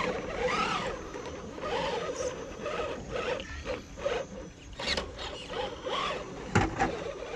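Radio-controlled scale rock crawler's electric motor and geared drivetrain whining in short throttle bursts, rising and falling in pitch as it climbs steep rock. A sharp knock about six and a half seconds in as the truck tips over backwards onto the rock.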